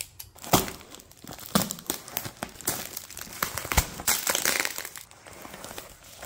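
Packaging of a large parcel being torn open and handled: irregular crinkling and tearing, with a few sharper snaps standing out.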